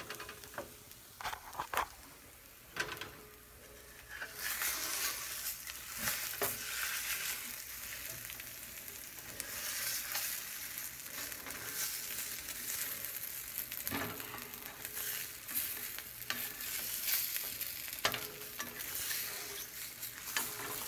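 Scrambled eggs sizzling in a frying pan, a steady hiss that grows louder about four seconds in, with a few sharp knocks scattered through it.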